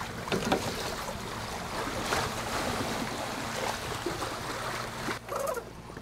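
Wind and water rushing past a sailboat under way, with a faint steady low hum beneath.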